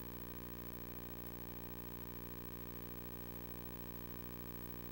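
Steady electrical hum and buzz on the audio line: a constant drone of many fixed tones that never changes.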